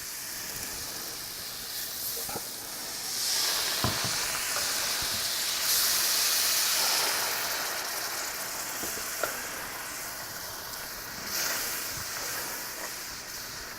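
Flour-and-oil roux for pan gravy sizzling in a hot pan. About three seconds in a louder steam hiss swells, holds for a few seconds and then eases, the sound of a splash of water added to cool a roux that was browning too fast. A few light clicks of a utensil against the pan come through.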